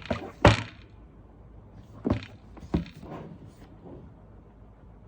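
Tablet box and packaging being handled on a table: a series of dull thunks and knocks. Two come close together at the start, the second the loudest, two more follow about two seconds in, then a few fainter taps.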